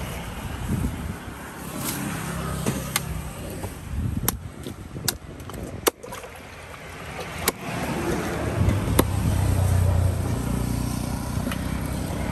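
Large knife chopping fish steaks on a wooden chopping block: about seven sharp, irregularly spaced chops of the blade into the wood. A low steady rumble runs underneath and swells in the second half.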